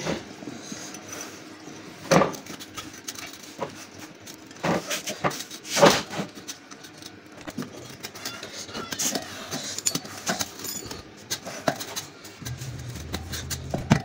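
A motorcycle tyre being worked by hand onto its spoked wheel rim: scattered knocks and handling noises as the rubber and wheel are pushed and shifted. A low steady hum comes in near the end.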